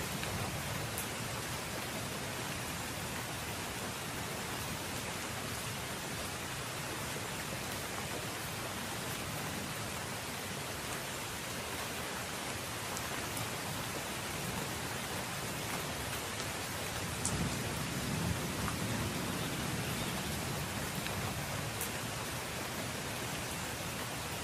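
Steady rain recording, an even hiss with a few faint ticks, and a low rumble that swells briefly about two-thirds of the way through.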